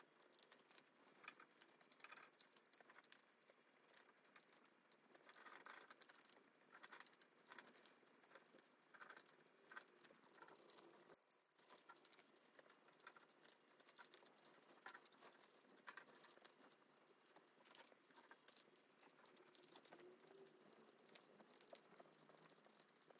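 Faint, irregular clicks and crunches of a Shiba Inu picking up dry kibble pieces one at a time from the top of a plastic-wrapped metal tin and chewing them.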